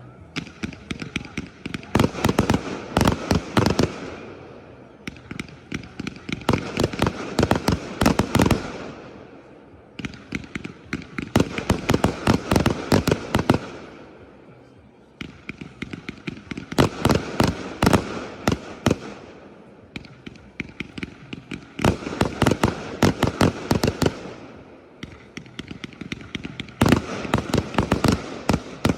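Fireworks display: volleys of rapid sharp bangs and crackles in bursts every few seconds, each burst dying away before the next.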